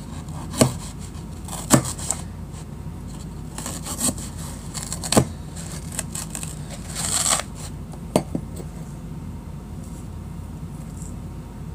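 A knife cutting through magic-eraser melamine foam: a few sharp knocks as the blade strikes the surface underneath, the one about five seconds in the loudest, and a scratchy rasp of the blade slicing the foam about seven seconds in.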